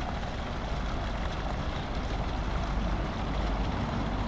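Fountain jets splashing steadily into a stone basin, with a deep rumble underneath.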